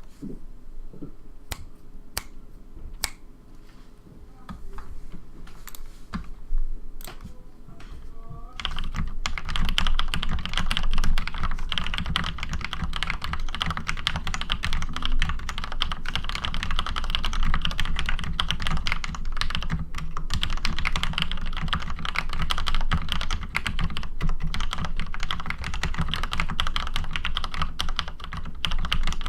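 Cherry G80-1800 mechanical keyboard with retooled Cherry MX Black switches lubed with Super Lube, and stabilizers lubed with dielectric grease, being typed on. A few separate keystrokes come first, then about eight seconds in, continuous fast typing.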